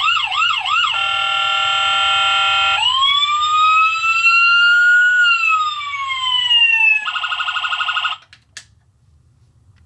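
Electronic police siren from a 1/24 scale Jada diecast police pickup's sound module, running through its tones: a few quick yelps, a steady horn-like tone, a long wail that rises and then slowly falls, and a fast warble. It cuts off about eight seconds in, followed by a single click.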